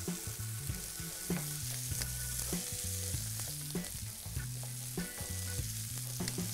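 Diced potatoes and zucchini sizzling in a hot frying pan as the potatoes are scraped in from a bowl with a wooden spatula, with scattered clicks of spatula on bowl and pan.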